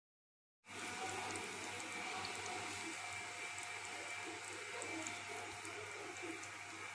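Chicken korma gravy bubbling steadily in an aluminium pot, over a low steady hum. The sound starts suddenly about half a second in.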